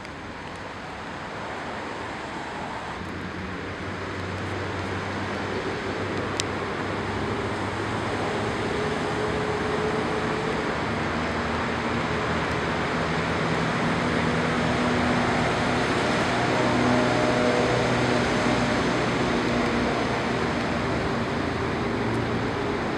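Steady road traffic noise that grows gradually louder, with faint low engine hum running through it. A single sharp click about six seconds in.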